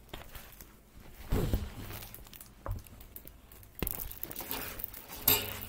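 Crinkling and rustling of a diamond painting canvas and its clear plastic cover film as it is handled, with a short sharp snap about five seconds in.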